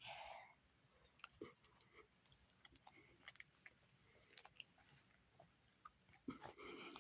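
Faint chewing with scattered small mouth clicks from a pet, and a short breathy sound near the end.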